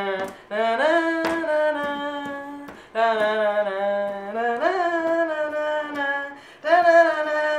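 A voice singing a tune without words, holding long notes that each slide up into pitch, in phrases with short breaks between them.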